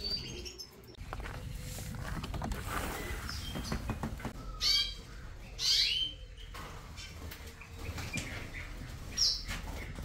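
Small aviary cage birds (canaries and finches) chirping in short calls, the loudest two about halfway through and another near the end, over wings fluttering.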